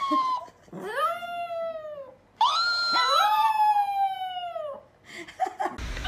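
A dog howling: a series of long, drawn-out howls, each rising and then sliding down in pitch, with a couple of short yelps near the end.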